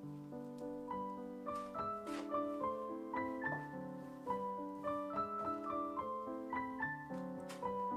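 Background piano music: soft held chords, with a gentle melody of single notes coming in about a second in.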